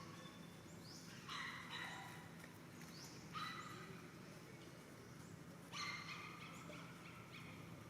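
Monkeys calling: a few short, high-pitched calls, about four, spread across a few seconds over faint outdoor background noise.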